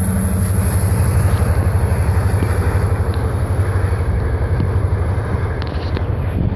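Steady low rumble of a freight train's rear diesel locomotive moving away down the track, its engine pulsing evenly and slowly getting fainter.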